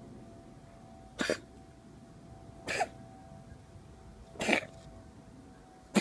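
A cat coughing during an asthma attack: three short coughs about a second and a half apart, with a fourth starting at the very end.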